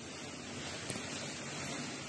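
Strong wind and heavy rain in a storm: a steady rushing noise, with one brief tick just under a second in.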